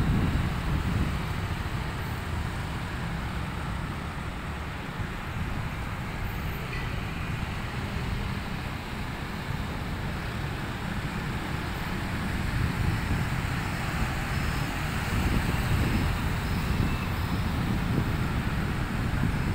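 Street traffic made up mostly of motorcycles and scooters passing, heard as a steady low rumble of small engines and tyres that grows a little louder in the last few seconds.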